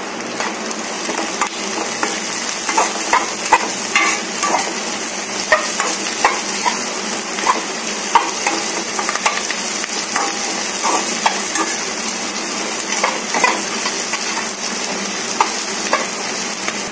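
Chopped onions and sweet corn kernels sizzling in oil in a kadai while a spatula stirs them, scraping against the pan in short irregular strokes over a steady hiss of frying.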